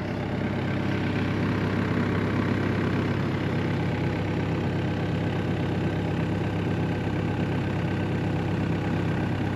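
Mini excavator's diesel engine running steadily at an even speed as its stick is drawn in and the bucket curled.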